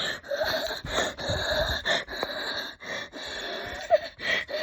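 A dog whining: a thin, wavering whine with breathy sounds, rising and falling briefly near the end.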